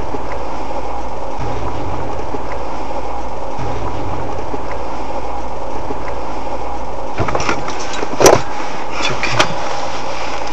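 Car engine and road noise heard from inside the car, a steady low hum as it drives slowly along the street. A few short knocks sound in the cabin near the end, the loudest about eight seconds in.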